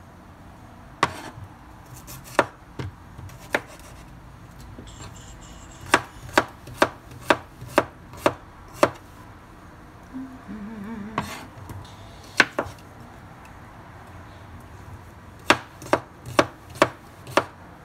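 Chef's knife dicing cucumber on a wooden cutting board: single chops, then runs of quick knife strikes about two a second, around six seconds in and again near the end.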